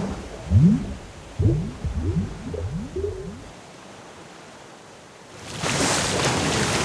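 Cartoon sound effects: a run of short, low groans, each rising in pitch, as a drawn pipe cracks, then, about five and a half seconds in, a loud rush of bubbling water.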